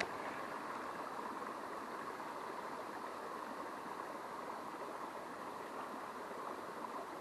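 River water rushing through a small chute, a steady, even hiss.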